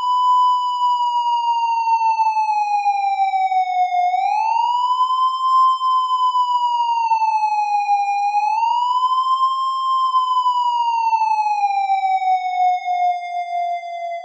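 Police siren in a slow wail, its pitch rising and falling about every four to five seconds and sliding down near the end.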